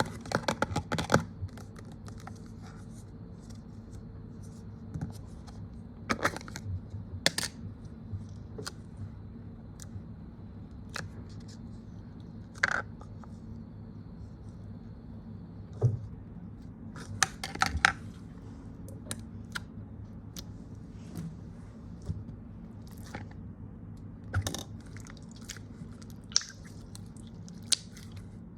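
Store-bought slime being handled and squished, giving scattered short clicks and crackly pops, some in quick clusters, over a faint steady low hum.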